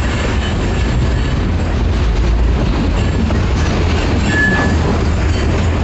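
Freight train of covered hopper cars rolling past close by: a steady heavy rumble of steel wheels on rail, with a brief high squeal about four and a half seconds in.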